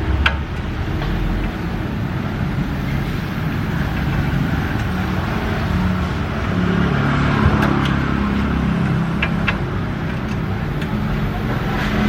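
Steady motor-vehicle noise, like an engine running or traffic going by, with a few short clicks scattered through it.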